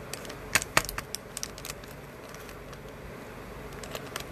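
Fingers handling the small plastic and paper pieces of a nail polish strip package: a scatter of small clicks and ticks, with two sharper clicks close together about half a second in.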